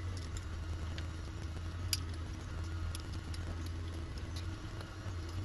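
Light, scattered clicks of 3D-printed plastic cable-chain links being handled and fitted onto cables, the sharpest about two seconds in, over a steady low hum.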